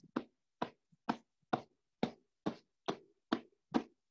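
Fingertip punches thudding into a pillow in quick alternating strokes, a steady rhythm of soft thumps about two a second.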